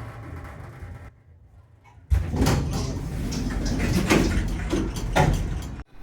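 Becker lift's doors sliding, with several knocks, starting suddenly about two seconds in after a brief hush and cutting off sharply just before the end.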